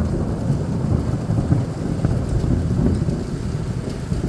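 Heavy thunderstorm rain pouring, with a low rolling rumble of thunder.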